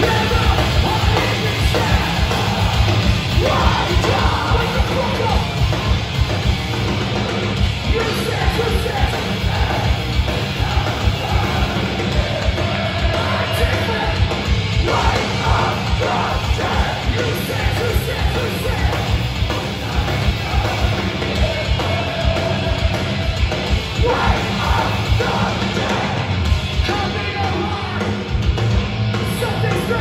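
Hardcore punk band playing live at full volume: distorted guitars, fast drums and shouted vocals, heard from inside the crowd.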